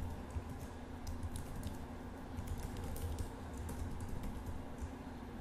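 Computer keyboard typing: quick, irregular keystrokes, quiet, over a low steady hum.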